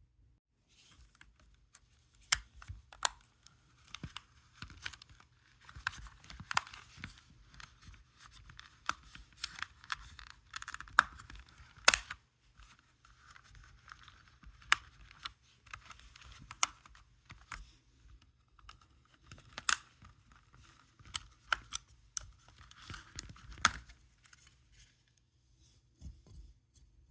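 A plastic opening tool prying at the snap-fit plastic trim of a PS5 DualSense controller: irregular plastic scraping and creaking with many sharp clicks, the loudest about 12 and 20 seconds in.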